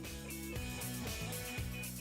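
Background music: a soft instrumental bed of sustained notes changing every half second or so.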